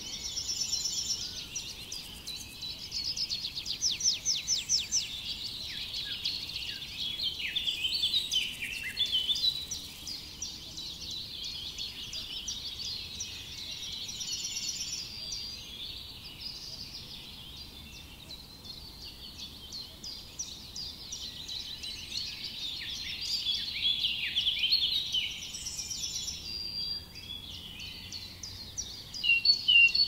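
A chorus of many songbirds singing at once: overlapping rapid trills and chirps that keep going without a break, swelling in bursts and loudest just at the end.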